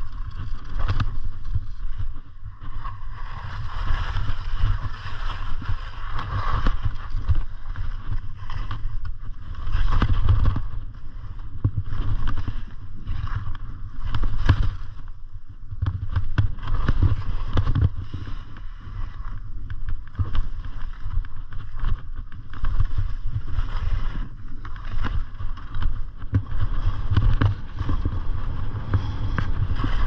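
Skis scraping and hissing over firm, bumpy snow, swelling with each turn, with short knocks over the bumps. Wind buffets the microphone throughout as a low rumble.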